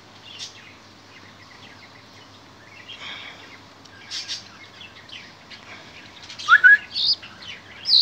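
Hand-fed lark chicks (Shirazi tarqa) giving begging chirps. A few faint chirps come first, then loud, sharp chirps with quick rising and falling notes in the last second and a half as the chicks gape for food.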